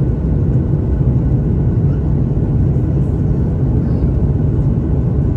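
Steady low rumble of a Boeing 737 MAX 8 descending on approach, its CFM LEAP-1B turbofan engines and the rushing air heard from inside the passenger cabin.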